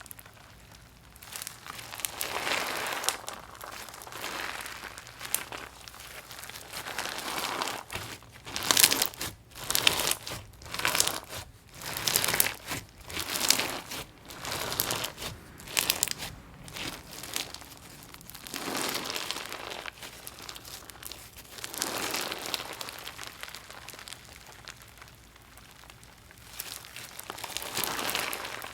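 Hands kneading and pressing a gritty, crunchy slime, making repeated crackling, crunching squishes. They come quickest and loudest in the middle.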